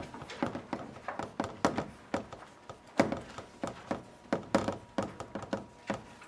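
Chalk on a blackboard writing Chinese characters: a quick, irregular run of short taps and scratches, several a second, as each stroke is made.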